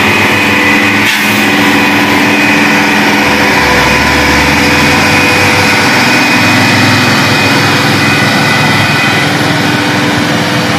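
Hino 500 FM 280 JD dump truck's six-cylinder diesel engine running under load as the loaded truck pulls uphill past and away, with a steady high whine over the engine note.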